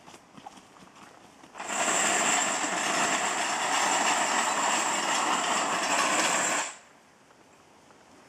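The metal rattle device of a dog mentality test, set off on corrugated sheet metal. It gives a loud clattering racket with a high metallic ring, starting suddenly about one and a half seconds in and cutting off about five seconds later.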